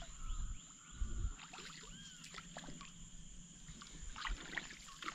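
Water sloshing and splashing, with dull knocks at the start and again about a second in.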